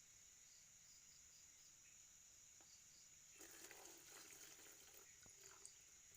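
Near silence with a faint steady drone of crickets and insects and soft repeating chirps. A faint brief rustling noise comes about halfway through.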